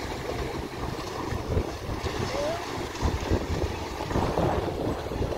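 Gusty wind buffeting the microphone, a rumbling rush that swells and eases, over the wash of choppy river water.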